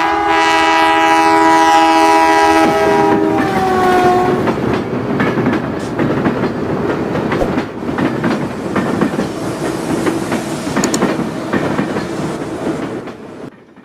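A passing train: its multi-tone horn sounds, then drops in pitch about three seconds in as it goes by, followed by the rumble and clickety-clack of wheels on rail that fades out near the end.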